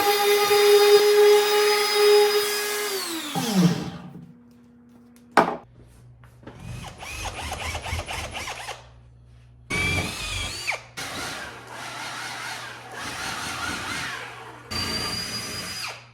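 An electric power tool's motor running at a steady pitch, then spinning down and stopping about four seconds in. A sharp click follows, then several short runs of rough power-tool noise with brief pauses between them.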